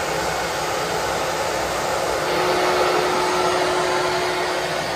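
A steady rushing whir like a motor-driven blower, with a faint steady hum joining in about two seconds in.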